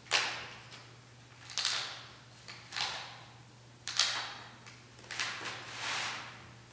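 Drawing strokes on a large sheet of paper, six short scratchy swishes at roughly one a second, each starting sharply and fading quickly, over a faint steady hum.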